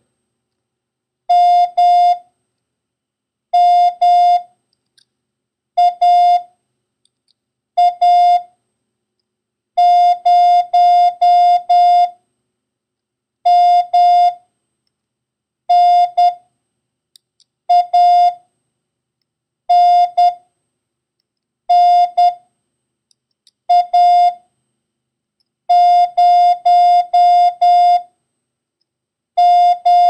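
Morse code practice tone sending single characters about two seconds apart, each a group of short and long beeps of one steady pitch: a copying drill of the letters M, A, N and the number 0.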